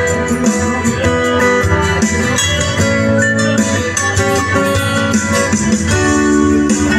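Acoustic guitar playing chords in a steady rhythm: the instrumental introduction before the vocal begins.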